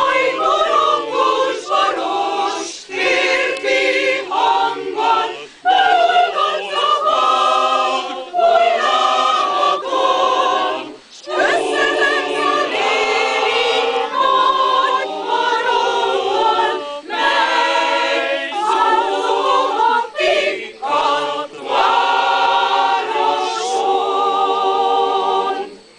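Mixed choir of women's and men's voices singing a cappella, in phrases with short breaks between them; the singing stops just before the end.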